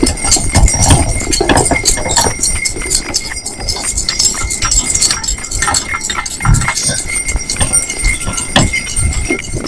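Hoofbeats of a pair of small harness horses pulling a wagon along a snow-packed road, a dense, irregular run of clicks and knocks.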